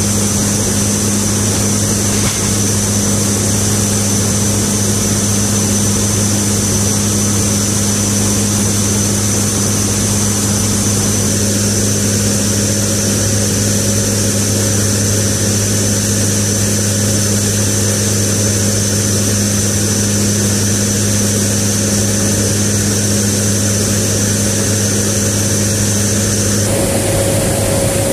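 Lockheed C-130J turboprop engines and six-bladed propellers heard from inside the cabin: a steady, loud drone with a constant low hum and a high whine. Near the end the drone's tones change abruptly.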